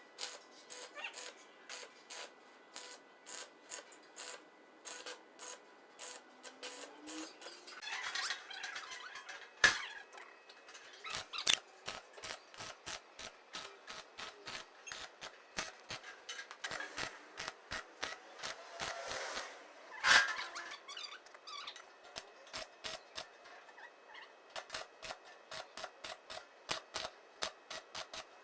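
Hand work on materials and parts: a quick run of small clicks and taps throughout, with a couple of sharper knocks and stretches of scraping and rubbing.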